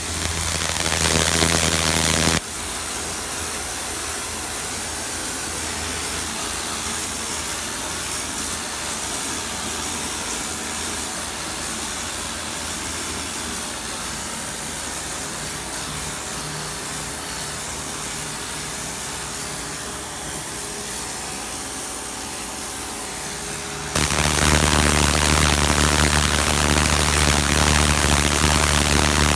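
Pressure washer running: a steady machine hum with the hiss of the spray. It is louder for the first two seconds, drops to a quieter steady hiss, then comes back loud with a strong hum from about 24 seconds in.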